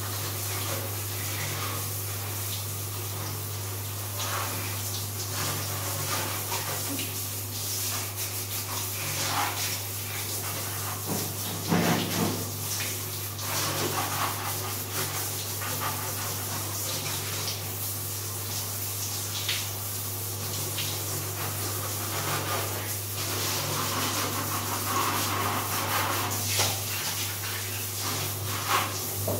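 Handheld shower sprayer running steadily, water hissing and splashing onto the tiled bathroom floor, over a steady low hum. A few light knocks come about twelve seconds in.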